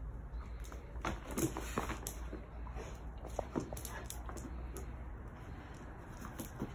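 Two Rhodesian ridgebacks playing over a rug: a few short whiny dog vocalizations, mostly in the first four seconds, with scattered clicks and scuffs as they move about on the tile floor.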